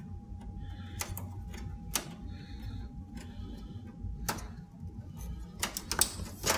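Sharp clicks and taps of hands working parts into a computer case's bracket while fitting a graphics card: a few scattered clicks, then a quick cluster near the end, over a faint steady hum and a thin steady tone.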